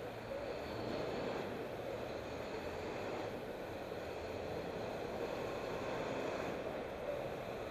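Steady city street traffic noise: vehicle engines running and a continuous road rumble, with no distinct single event standing out.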